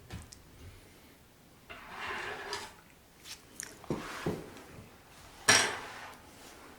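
Close-miked eating sounds of chewy octopus and carbonara buldak noodles being bitten and chewed. There are a few sharp clicks about four seconds in and a loud, brief burst about five and a half seconds in.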